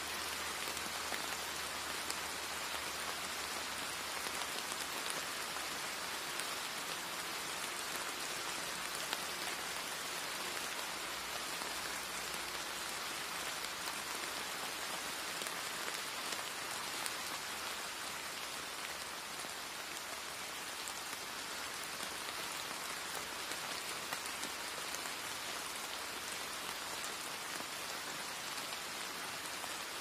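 Steady rain: an even hiss of falling rain with faint scattered drop ticks, holding a constant level throughout.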